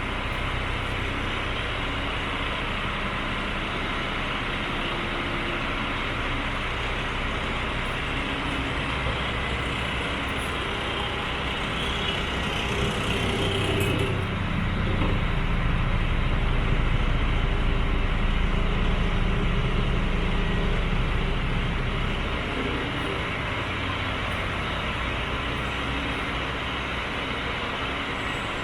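DAF CF75 truck's 310 hp diesel engine running steadily at idle. About halfway through it grows louder and deeper for several seconds, then settles back.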